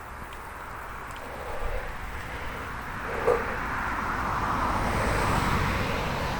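A car on the road growing louder as it comes up and passes, its tyre and road noise swelling from about halfway in, over the steady rumble of riding. A brief sharp sound about three seconds in.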